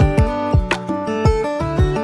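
Background music with a steady beat, about two beats a second, under sustained pitched notes.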